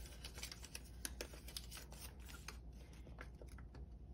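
Paper banknotes handled by hand: faint, quick, crisp rustles and flicks of the bills, scattered throughout.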